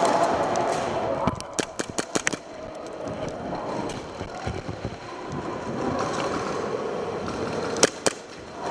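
Airsoft gunfire: a quick string of about eight sharp shots a little over a second in, then two more shots close together near the end, over a steady background hum.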